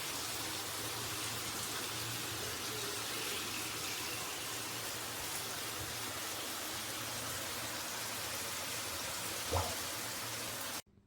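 Water spraying steadily from a handheld shower head, an even rain-like hiss with one small knock near the end, before it cuts off abruptly.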